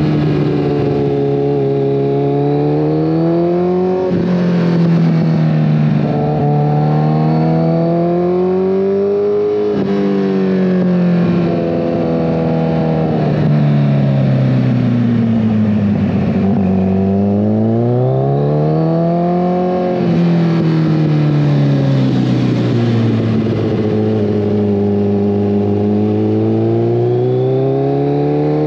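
2014 Kawasaki ZX-14R's inline-four running through a full Brocks Alien Head 2 aftermarket exhaust while riding. The revs climb and fall with the throttle, with sudden drops in pitch about 4, 10 and 20 seconds in, like gear changes, over a steady rush of wind.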